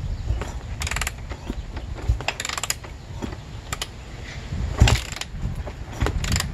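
A motocross boot working against the kick-start lever of a 2006 Honda CRF250R: several short scrapes and sharp clicks of the lever, its ratchet mechanism and the boot rubbing on the frame.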